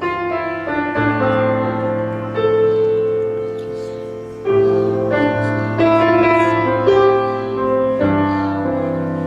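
Slow instrumental worship music on piano, with a new chord struck every second or two and left to ring.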